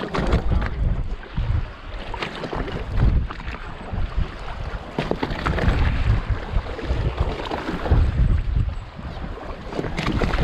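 Wind buffeting the microphone in gusts over choppy sea water splashing and slapping against the side of a wooden fishing pirogue.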